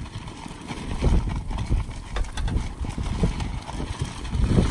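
Wind buffeting the microphone in an uneven low rumble, with irregular soft knocks.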